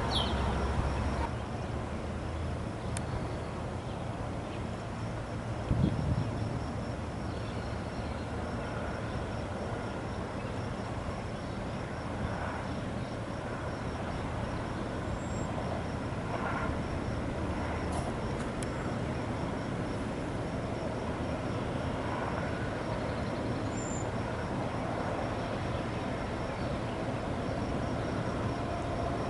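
Steady low rumble of a CSX diesel freight locomotive approaching from a distance at the head of a tank-car train, growing a little louder near the end, with a faint steady insect buzz above it. A short thump about six seconds in.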